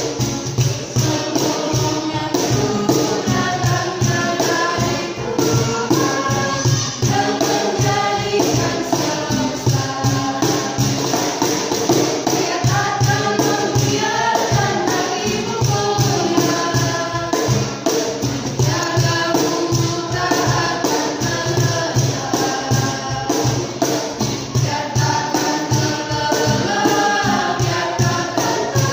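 Mixed group of men and women singing an Indonesian worship song together, accompanied by a strummed acoustic guitar and a cajón keeping a steady beat.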